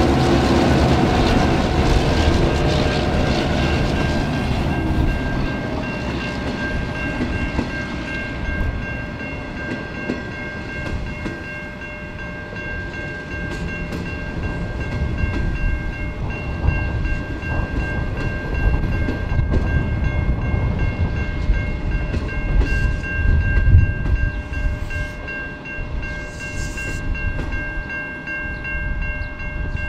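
SSR diesel locomotives T386 and P18 running past hauling an unpowered Comeng electric train: the engines' drone fades over the first few seconds, leaving the rumble and clatter of the carriages' wheels on the rails as the train draws away. A steady, high-pitched ringing sits on top from a few seconds in.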